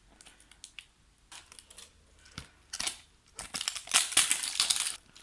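Crinkly plastic wrapping of a toy surprise ball being handled and torn open along its zip strip. A few small clicks and rustles are followed, about three and a half seconds in, by a dense crackling that lasts over a second.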